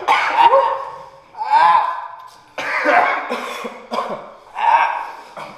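People coughing and clearing their throats in four loud fits, with strained voiced cries mixed in. It is a reaction to the burn of the Paqui One Chip Challenge chip, a tortilla chip made from extremely hot peppers.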